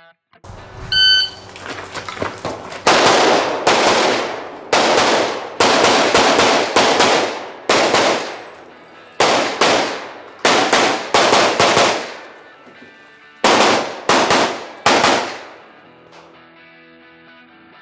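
A shot-timer beep, then a pistol firing about twenty shots in quick pairs and strings with short pauses between the groups, each crack ringing with a short echo, as a competitor shoots a USPSA stage.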